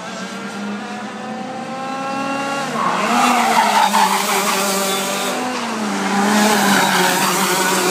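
Racing kart engine (IAME-powered Top Kart) running hard, its pitch rising steadily for about three seconds, then dropping sharply as it comes off the throttle. It gets louder as the kart approaches and passes close by, the pitch dipping and climbing again.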